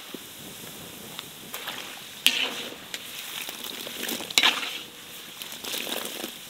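Pieces of lamb sizzling and bubbling as they fry in rendered fat in a large pot. Sharp crackles of spitting fat break through now and then; the loudest come about two seconds in and again about four and a half seconds in.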